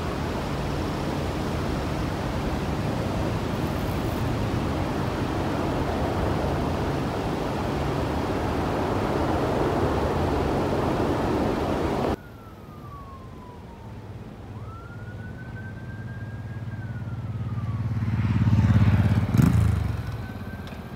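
Wind rushing over the phone's microphone as a loud, steady noise that cuts off abruptly about twelve seconds in. After the cut an outdoor tornado warning siren wails, slowly falling, rising and holding, then falling and rising again, while a gust of wind on the microphone swells to a loud rumble near the end.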